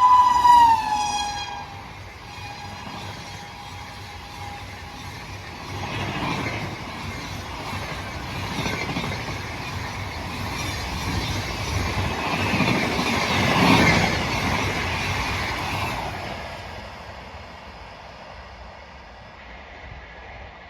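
A WAP-7 electric locomotive's shrill horn, held and then dropping in pitch as the locomotive passes in the first second or two, trailing off faintly. The express's coaches then rush past, a rumble with wheel clatter that builds to its loudest about two-thirds of the way through and dies away near the end.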